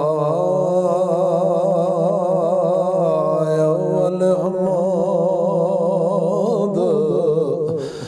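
A man singing the drawn-out opening of a Punjabi Sufi kalam: one long unbroken phrase on held notes with a wavering vibrato. It breaks off near the end for a breath.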